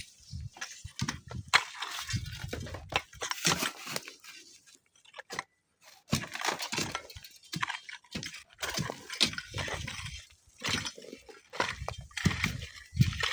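Loose dry sand crunching and sliding in irregular bursts, with sharp crackles and ticks of grit, broken by a brief silence about five seconds in.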